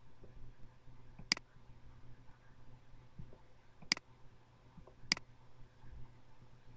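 Three sharp computer mouse clicks: one about a second in, then two more about a second apart later on, over a faint low hum.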